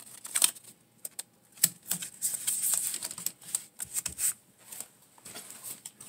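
Blue painter's tape being torn and pressed onto a drawer: irregular crackling rips and small clicks, on and off.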